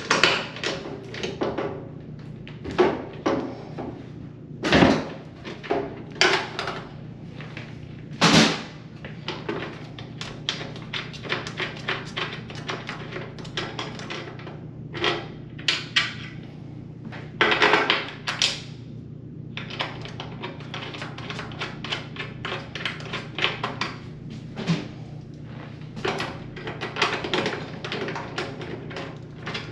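Hand-tool work on an Electrolux dryer's drum support roller mounts: irregular metal clicks, taps and knocks, with a few louder clanks scattered through, over a steady low hum.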